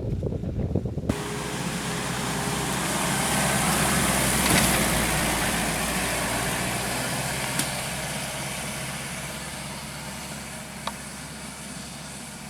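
An off-road SUV's engine running with a broad hiss of tyres on wet ground, growing louder to a peak about four seconds in and then slowly fading as it passes. Wind buffets the microphone for the first second, before a cut.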